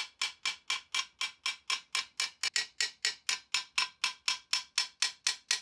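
Hammer taps driving an MGB half-shaft and its new bearing into the rear axle casing, a steady run of about four sharp metallic strikes a second, each with a short ring. The taps have gone very much more metallic, the sign that the bearing is fully seated.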